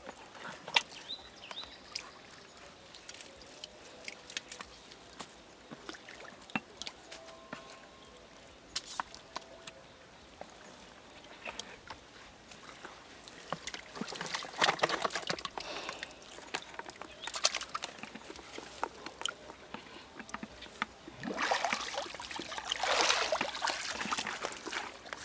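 Hands scooping and sloshing in muddy water at the bottom of a dug hole, with scattered small clicks and knocks and louder bursts of splashing near the middle and toward the end.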